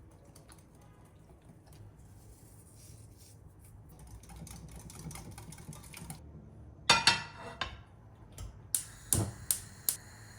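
Kitchen handling sounds: soft rustling and shuffling, then a run of sharp clinks and knocks of kitchenware over the last few seconds, the loudest a close pair about seven seconds in.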